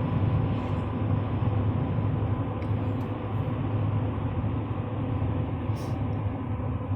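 The 2015 Chevrolet Silverado 3500's 6.6-litre Duramax V8 turbodiesel running with a steady low rumble.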